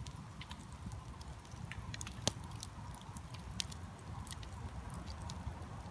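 Wood campfire crackling, with sharp irregular pops and snaps over a low steady rumble; one louder pop a little after two seconds in.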